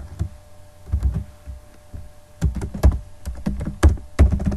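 Typing on a computer keyboard: a few scattered keystrokes, then a quicker run of key clicks from about halfway through.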